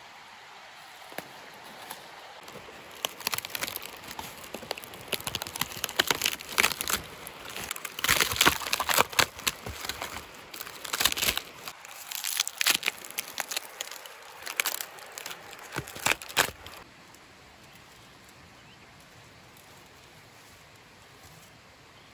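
Papery birch bark being peeled and torn off a birch trunk by hand: a run of dry crackling and ripping in quick pulls. It stops about three-quarters of the way through.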